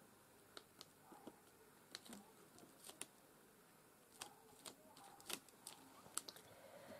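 Faint, scattered light taps and clicks of small paper pieces and craft materials being handled on a tabletop, over near silence.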